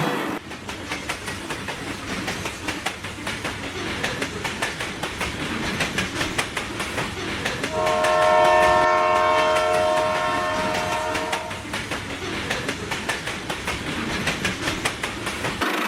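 Train running on rails with rapid clickety-clack of wheels over the track, and a chord-like horn sounding once for about three and a half seconds near the middle.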